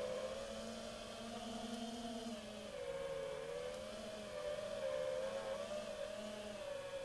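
A 5-inch FPV quadcopter's brushless motors and propellers whining steadily, the pitch rising and falling gently with small throttle changes.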